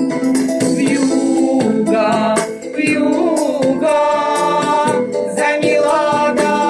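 Music: a song with a held, gliding sung melody over instrumental backing and a steady beat.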